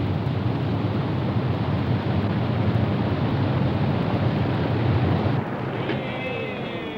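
Steady roar of rushing water at a waterfall, falling away about five seconds in, when faint wavering tones come in.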